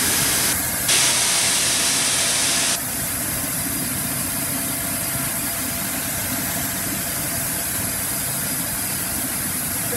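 Steam hissing loudly from the open cylinder drain cocks of a triple-expansion marine steam engine during warming-through. The hiss dips briefly just under a second in and cuts off suddenly about three seconds in, consistent with the high-pressure cylinder's drain cocks being shut. A quieter steady hiss and rumble carries on from the drain cocks still open on the other cylinders.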